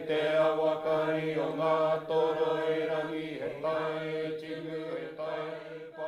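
A voice chanting in te reo Māori on a steady held note, a Māori chant such as a karakia, growing quieter toward the end.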